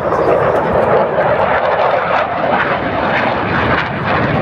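Military jet aircraft flying past, a loud, steady rushing engine noise.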